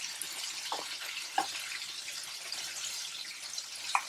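Flour-coated chicken wings deep-frying in hot oil in a wok: a steady sizzling hiss, with a few short clicks.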